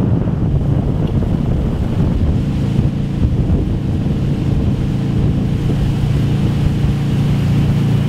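Motorboat engine running steadily under way, towing a wakeboarder, with wind rushing over the microphone; the engine hum becomes steadier about two and a half seconds in.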